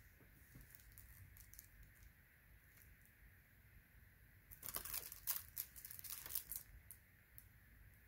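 Plastic shrink-wrap on a Blu-ray case crinkling as the case is handled and turned over: a few faint ticks, then a dense run of crackles lasting about two seconds in the middle, then a couple more ticks.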